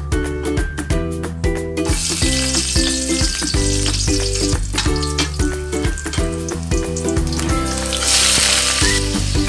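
Garlic sizzling as it fries in hot oil in a wok, the hiss starting about two seconds in. Near the end the sizzling grows louder as more food is stirred in with a spatula. Background music plays throughout.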